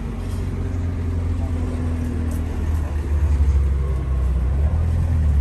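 Low, steady rumble of a motor vehicle's engine running, growing louder in the second half.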